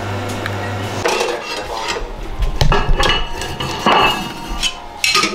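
Irregular metal clanks and knocks at the cast-iron door of a wood-fired bread oven as it is being lit. For the first second, an espresso machine's pump hums steadily as it pours.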